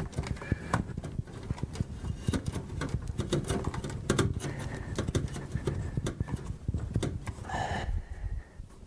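Corrugated plastic washing-machine discharge hose crackling and clicking as it is twisted and pushed onto a barbed fitting: a dense, irregular run of small clicks.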